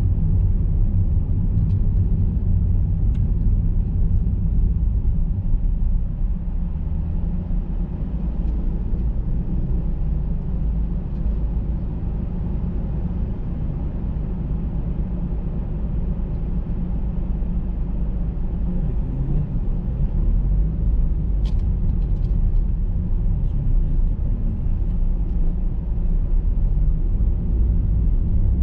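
A car driving, a steady low rumble of engine and road noise that does not let up.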